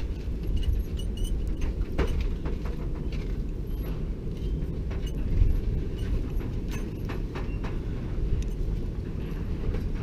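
Wind buffeting the microphone, a steady low rumble that swells briefly about halfway through, with scattered faint clicks.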